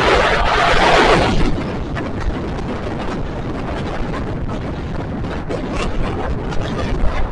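Wind buffeting the microphone of a moving motorcycle, mixed with steady road and engine noise, with a louder rush of noise for about the first second and a half.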